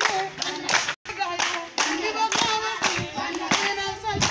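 Group of girls singing a Jengo dance song while clapping together in a steady rhythm, about three claps a second. The sound breaks off for an instant about a second in.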